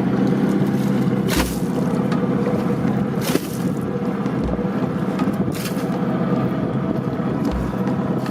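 Steady motor drone with a low thump about every three seconds.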